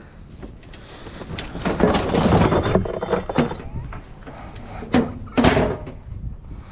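Scrap metal being handled and moved, with a rough clattering stretch and then a few sharp knocks of metal against metal, two of them close together near the end.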